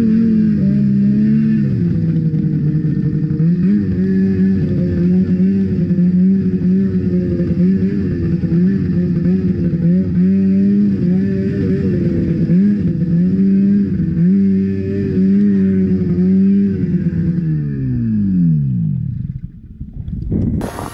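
Ski-Doo 600 RS snowmobile's two-stroke engine running hard under throttle, its pitch dipping and rising again and again as the sled skips off the river water and climbs the bank. Near the end the revs fall away in one long downward slide until the engine sound dies out.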